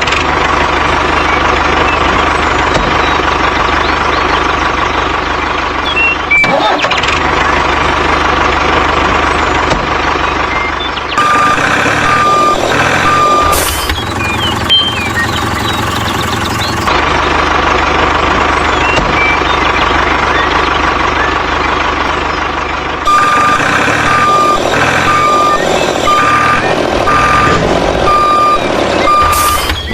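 A heavy vehicle's engine running steadily, with a reversing alarm beeping: three beeps around the middle, then a longer run of about seven beeps near the end.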